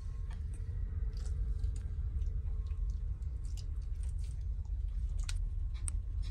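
Steady low rumble of a ferry's engines and hull heard from inside the ship, with scattered small clicks and ticks over it.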